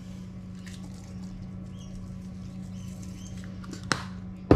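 Garlic salt shaken from a small shaker onto a fish in a baking dish: a faint, scattered patter of shaking, over a steady low background hum. Two sharp clicks come near the end.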